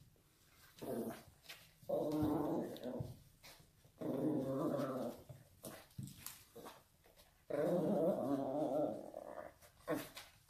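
A small dog growling in repeated rough bouts of one to two seconds, with short pauses between.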